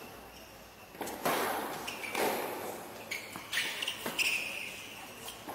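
Tennis ball struck by rackets and bouncing on a hard court in a rally, a string of sharp knocks starting about a second in. Short high squeaks of shoes on the court come in the second half.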